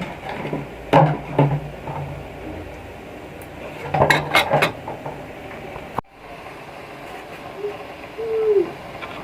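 Kitchen utensils knocking and clinking against pots and pans: a few sharp knocks about a second in and a quick cluster about four seconds in, with a sudden break about six seconds in.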